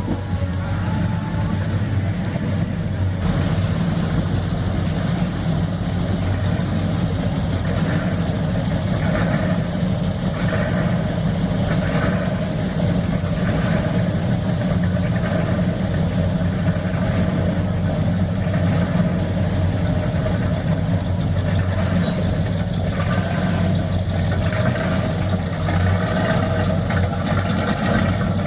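Classic car engines idling steadily as cars creep past in a slow line.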